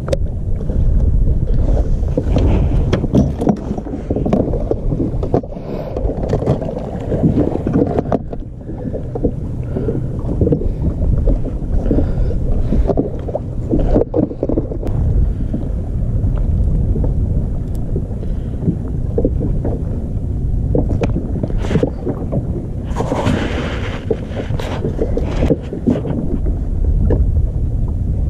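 Wind rumbling on the camera microphone, with scattered clicks and rustles of fishing tackle being handled. There is a louder rustle late on.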